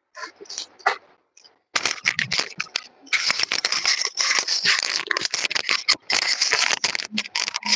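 Viscose georgette saree fabric rustling and scraping close to the microphone as it is handled and draped over the shoulder. A few faint rustles come first, then from about two seconds in a dense, continuous crinkling with many small clicks.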